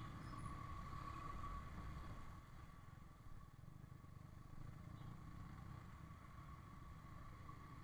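Low, dull rumble of a Yamaha R15 V3's single-cylinder engine and road noise while riding slowly in traffic, with a faint steady whine above it.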